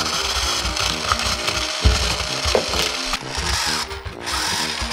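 A toy hand mixer running, its small motor whirring steadily as the beaters churn through flour in a plastic bowl.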